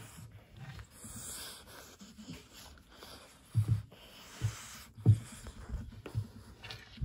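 French Bulldog breathing noisily with wheezes and snorts while hands rub its face and fur. Several short low thumps come from about halfway through.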